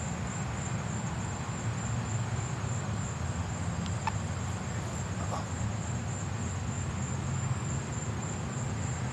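Crickets trilling steadily in a high, continuous pitch, over a constant low rumble.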